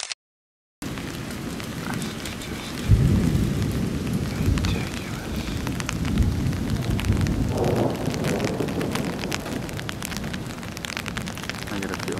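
Steady rain falling. After a silent gap of under a second at the start, a loud clap of thunder comes in about three seconds in and rolls on as a low rumble for several seconds.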